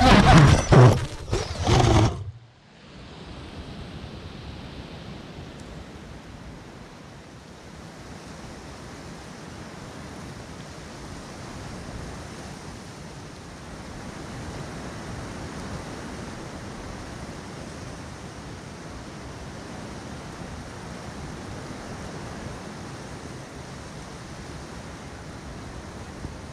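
Drone crash: the drone's motors hum while it tumbles, with a few sharp knocks as it hits the grass, and the motor sound cuts off suddenly about two and a half seconds in. After that only a steady hiss of wind on the downed drone's microphone.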